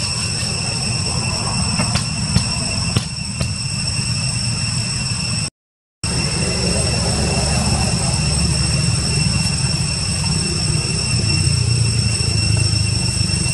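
Steady outdoor background: a low rumble with a constant high-pitched drone of steady tones on top. A few sharp clicks come about two to three and a half seconds in, and the sound cuts out completely for half a second near the middle.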